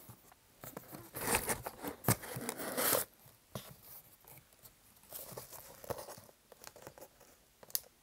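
Packaging being torn open and crinkled by hand while a parcel is unwrapped: bursts of tearing and rustling with a few sharp clicks, loudest from about one to three seconds in, then quieter rustling.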